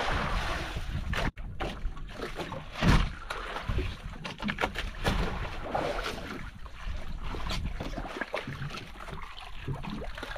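Wind buffeting the microphone and sea water around a wooden outrigger fishing boat, with a few short knocks of gear being handled on board.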